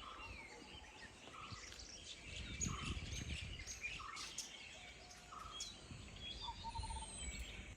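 Wild birds chirping and calling, with one short, buzzy note repeating about every second and a quarter under scattered higher chirps.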